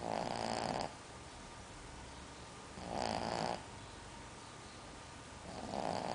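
A sleeping bulldog snoring: three loud snores, one roughly every three seconds, each lasting under a second.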